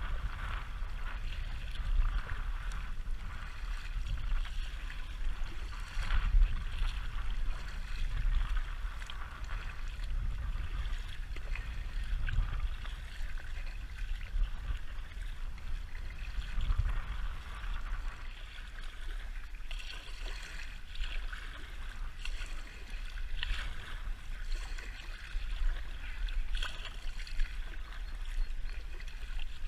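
Water splashing from kayak paddle strokes and lapping against an inflatable kayak, with wind rumbling steadily on the microphone.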